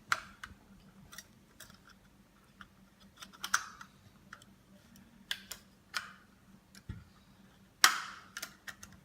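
Scattered light clicks and taps of plastic and thin metal parts of a car display unit being fitted and snapped back together, the loudest a little before the end.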